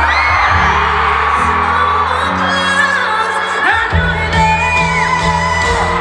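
Live pop ballad heard from among an arena audience: sustained chords changing every second or so under a woman's singing voice, with crowd voices and shouts mixed in.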